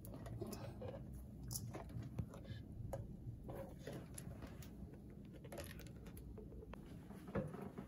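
Faint small clicks and soft squishes of a spoon scooping Miracle Whip from its jar and dropping dollops into a stainless steel mixing bowl of salad, over a low steady hum.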